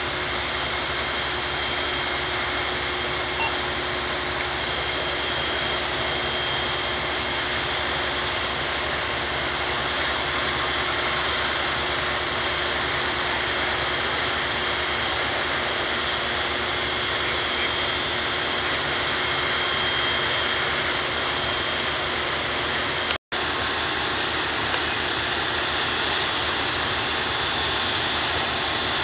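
Steady, loud mechanical roar of fire apparatus engines and pumps running at a fire scene, with a faint steady hum. It breaks off for a moment about 23 seconds in, then carries on unchanged.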